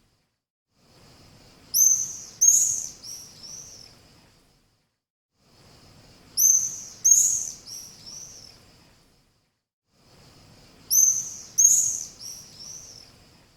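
Swallow calling: a burst of four or five high chirps, the first two loudest and the rest fading, with a faint hiss under each burst. The same phrase comes three times, about every four and a half seconds.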